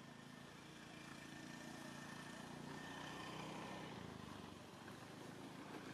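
Faint, low hum of a distant motor engine, swelling about halfway through and easing off toward the end.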